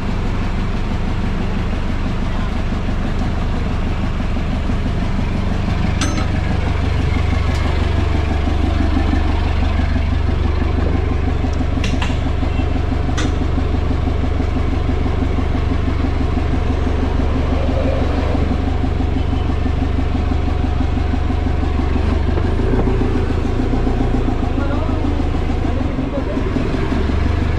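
Vehicle engine running steadily with a low rumble, with a few sharp clicks about six and twelve seconds in.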